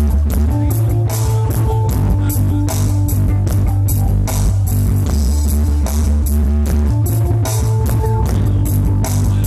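Rock music with guitar, drums and heavy held bass notes, played loud through a contest sound system during a sound check.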